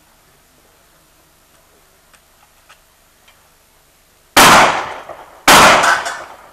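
Two loud gunshots about a second apart, fired in cowboy action shooting with black-powder cartridges, each with a tail fading over most of a second.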